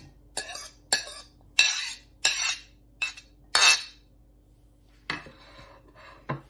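Metal spoon scraping and clinking against a ceramic plate as pomegranate seeds are pushed off into a bowl. About six short, sharp strokes come roughly every half second, then a few softer scrapes near the end.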